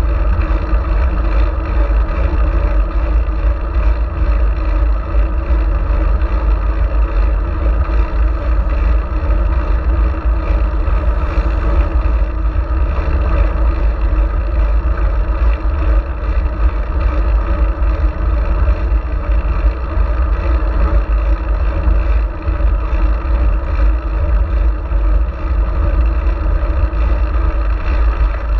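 Steady, loud low rumble of wind buffeting and road noise on a GoPro Hero4 riding on a moving fixed-gear bicycle, with no break or change.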